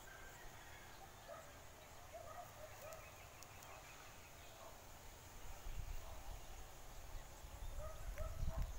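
Birds chirping, with many short, scattered calls throughout. From about halfway a low rumble on the microphone builds, loudest near the end.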